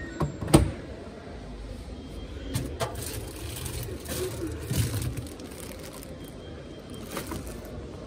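A sharp knock from the glass door of a front-loading washing machine about half a second in, then a few softer knocks and clicks as the door and the machine are handled.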